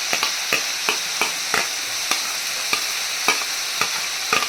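Carrot, green beans, chicken and prawns sizzling in oil in a hot wok while being stir-fried, a spatula clacking and scraping against the wok about two to three times a second over a steady hiss of frying.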